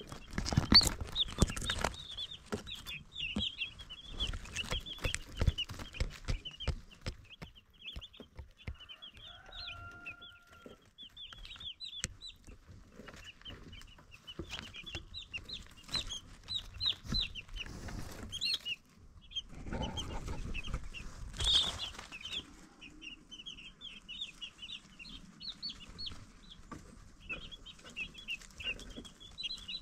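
A brood of baby chicks peeping continuously in many rapid, short, high chirps, with frequent light taps and knocks throughout. There is a louder burst of rustling around twenty seconds in.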